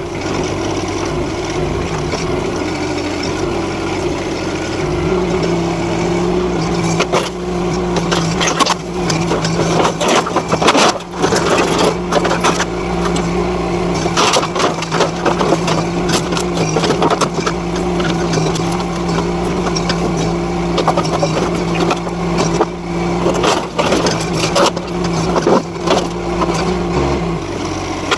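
Mini excavator engine running, its note stepping up about five seconds in and holding steady until near the end, with repeated cracks and knocks of old timber and sheet metal breaking as the machine pulls down a shed.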